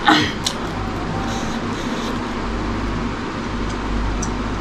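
Steady background rumble and hiss, like machinery or traffic running nearby. There is a short breathy sound and a single click just at the start.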